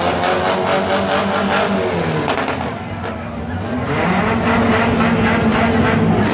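Several demolition derby cars' engines running and revving together, their pitches falling and rising; the noise drops back briefly about three seconds in, then picks up again.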